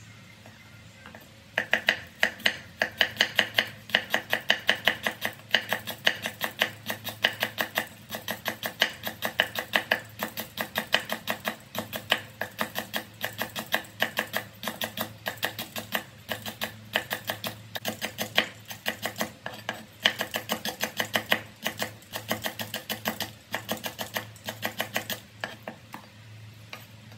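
Cleaver slicing lemongrass stalks into thin rings on a wooden cutting board. The blade knocks on the board in a fast, steady rhythm of about four to five strokes a second, starting about a second and a half in and stopping just before the end.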